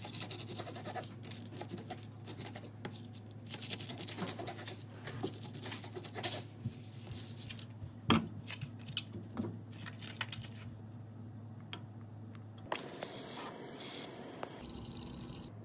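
A knife cutting through pineapple rind on a cutting board, a run of crunches and clicks, then pieces dropped into a stainless steel pot with a loud knock about eight seconds in. Near the end, tap water runs into the pot with a steady hiss. A steady low hum sits underneath throughout.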